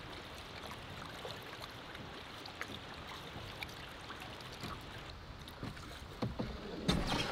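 A canoe being paddled: a paddle drawing through the water with small drips and splashes, and a louder splash near the end.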